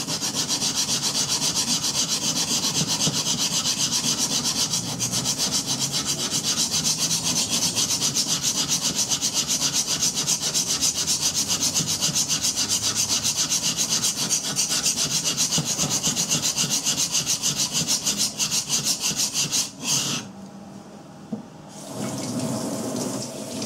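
A coated knife blade is stroked rapidly back and forth on a wet 220-grit green carbide water stone, grinding in on its bevel with a steady, even run of rasping strokes. The strokes stop about 20 seconds in. Near the end, water runs from a tap into the sink.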